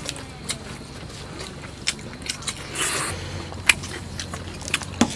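People eating: chewing, with chopsticks and spoons clicking and scraping against plates and a griddle pan in scattered short clicks.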